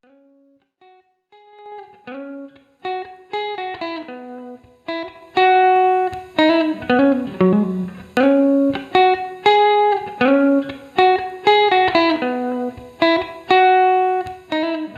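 Clean electric guitar playing single picked notes through a stereo 1176-style FET compressor set to its Revision D mode. It starts faint and grows louder over the first five seconds, then plays on at full level.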